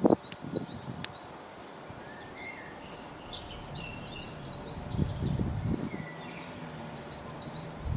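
Wild birds singing, with a short chirp repeated again and again and other song notes over it. A low rumble comes in briefly near the start and again about five seconds in.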